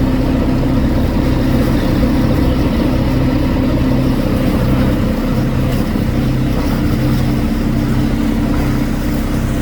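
A boat's engine running steadily, making a constant low drone with an even hum.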